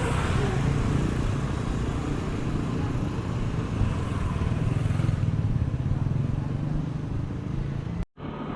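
Motorcycle engine running close by on a city street, a steady low hum with street noise around it. The sound cuts out completely for a moment near the end.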